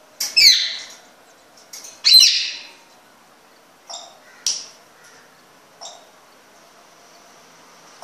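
African grey parrot calling: a loud call falling in pitch just after the start, another loud call about two seconds in, then three shorter, quieter calls spaced over the next few seconds.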